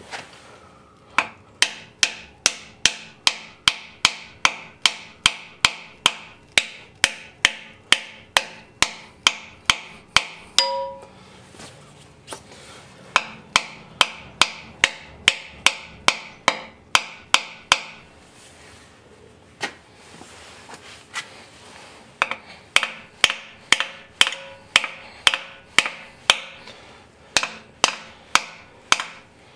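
Hammer blows driving a freeze plug into the core-plug hole of a 396 big-block Chevrolet engine block, struck through a small spacer. The blows are sharp and even, about two a second, each with a short ring. They come in runs: a long one, a pause of a couple of seconds, a second run, a few scattered taps, then two more runs near the end.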